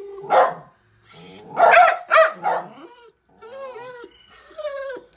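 Dachshund barking: about four short, sharp barks, then whining with a wavering pitch in the second half.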